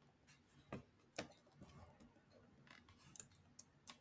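A few faint computer keyboard keystrokes, about seven single clicks at uneven intervals, as text is deleted from a terminal command.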